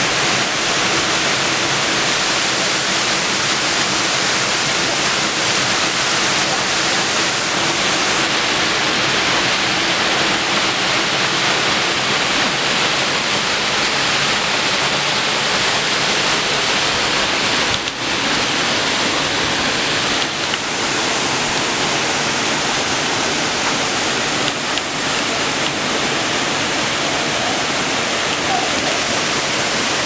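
Waterfall rushing: a loud, steady hiss of falling water.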